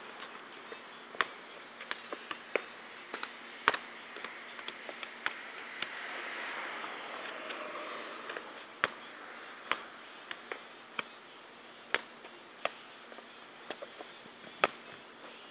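Soccer ball being juggled: sharp, irregular taps of kicks and headers on the ball, about one a second with a pause in the middle. A steady insect buzz runs behind, swelling and fading midway.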